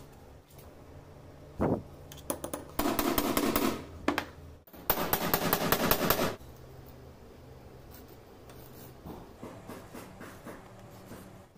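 A small metal hand tool scraping rapidly against a leather strap on a cutting board, in two spells of about a second each, after one sharp click; a few light taps follow near the end.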